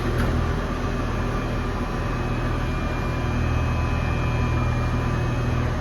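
Metal lathe running steadily, its motor and spindle giving an even hum with a few faint high whining tones.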